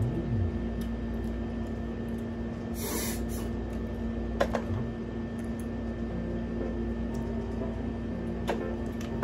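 Quiet eating sounds: a short crackle about three seconds in and a couple of sharp clicks as crab shells are picked apart with small forks, over a steady background hum.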